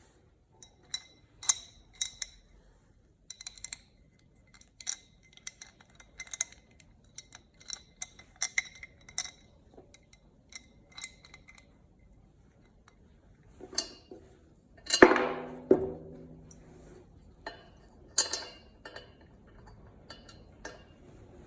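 Small wrench working the leg bolts of a steel roller stand: a long run of light metallic clicks and clinks as the tool turns and knocks against the fittings, with a louder ringing metal clang about fifteen seconds in.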